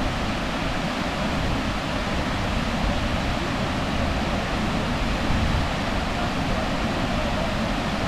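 Steady rushing roar of river water pouring over a waterfall, an even unbroken wash of noise.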